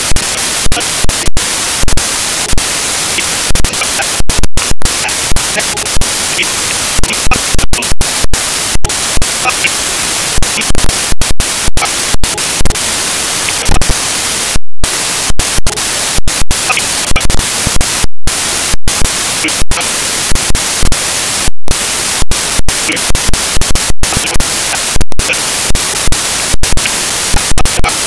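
Loud, steady static hiss from a corrupted digital recording. It is cut by frequent, irregular dropouts to silence and short jumps to full, clipped level.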